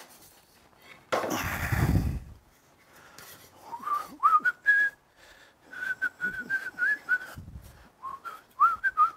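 A man whistling a tune in short, wavering notes, starting about three and a half seconds in. Before it, a loud noisy clatter lasts about a second.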